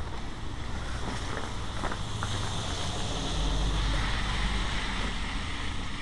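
A pickup truck driving past on a wet, slushy street: its tyre hiss and engine swell to a peak about halfway through, then ease off. Wind rumbles low on the microphone throughout.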